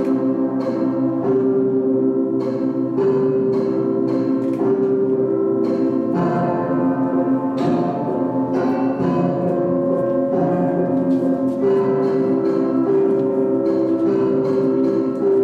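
Slow instrumental music of struck, ringing notes, each new note landing about every second or so over long sustained tones.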